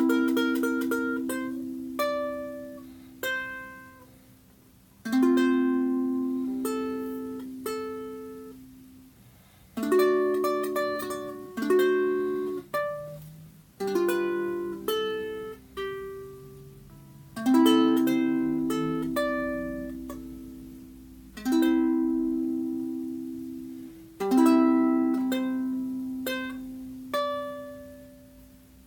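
Enya soprano ukulele newly strung with Fremont Blackline low-G strings, playing a slow tune in chords that are struck every second or two and left to ring and fade. The tone is nice and mellow.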